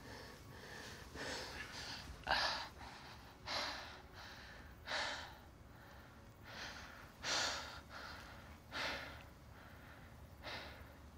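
A man breathing hard in a series of loud, gasping breaths, spaced unevenly about one to two seconds apart, over a faint steady background hum.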